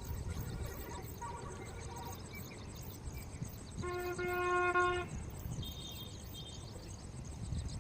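A single vehicle horn blast, steady in pitch and lasting a little over a second, about four seconds in, over a constant low background rumble.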